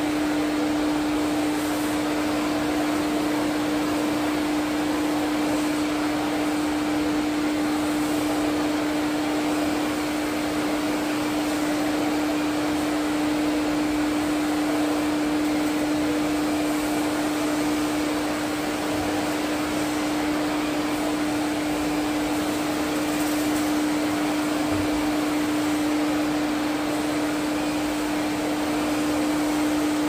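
Vacuum cleaner running steadily while vacuuming carpet: a constant hum over an even rushing hiss.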